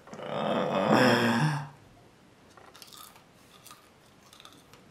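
A man's long, breathy, reluctant groan. It is followed by faint, crisp crunches as he bites into and chews a dry, tough dried chili pepper.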